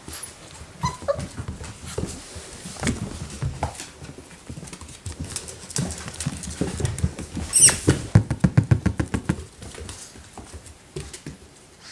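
Four-week-old puppies' paws pattering and scrabbling on a wooden floor, with a quick run of taps after the middle. A short puppy whimper about a second in and a sharp high squeal around the middle.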